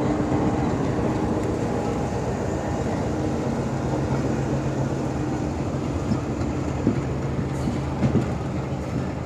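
Pakistan Railways diesel locomotive and passenger coaches passing close by, the engine running with a steady drone. A few sharp wheel clicks over the rail joints come near the end.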